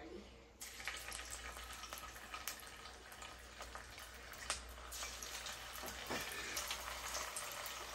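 Chunks of red snapper dropped piece by piece into hot oil in a pot, the oil starting to sizzle about half a second in. The frying grows fuller as more pieces go in, with scattered sharp pops and crackles.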